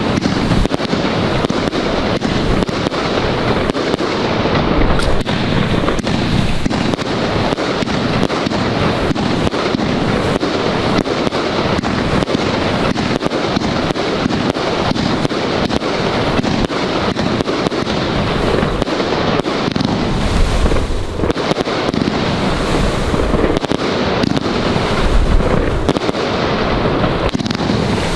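Luypaers Arabian Leopard 100-shot compound firework cake firing in a dense, unbroken barrage of launches and aerial bursts.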